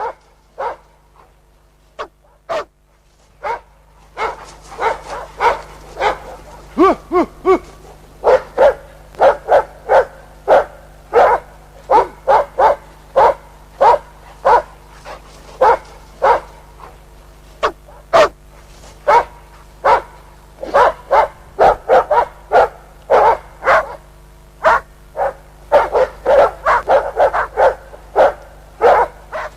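Hunting dog barking, a few scattered barks at first, then from about four seconds in fast and without letup at about two barks a second, the sustained barking of a dog baying game in a bear hunt.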